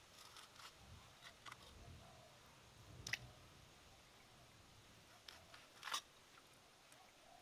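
A cleaver chopping crisp rounds off a peeled banana-tree stem against a stone: a few soft cuts in the first two seconds, a sharper one about three seconds in, and the loudest near six seconds.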